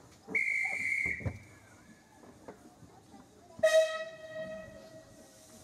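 A shrill hand whistle blown once, then about three seconds later the 15-inch-gauge steam locomotive's whistle sounds once, loud and steady, fading over about a second and a half: the guard's right-away and the engine acknowledging it before departure.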